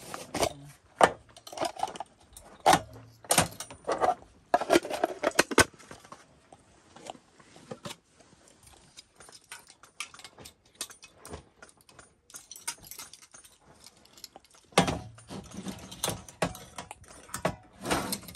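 Clinking and clattering of small hard objects being handled, in busy bursts of sharp clicks and knocks with a sparser stretch in the middle.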